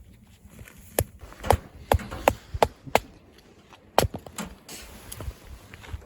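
An irregular series of about eight sharp chopping knocks, several close together, then a couple more spaced out near the end.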